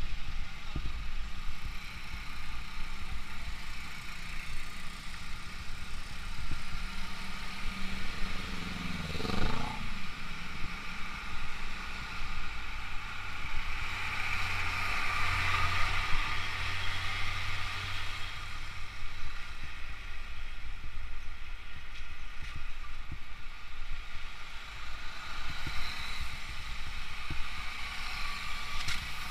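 Motorcycle engine running while riding, with road and wind noise and the engines of queued trucks alongside. There is a brief rising and falling whine about nine seconds in, and the noise grows louder for a few seconds around the middle.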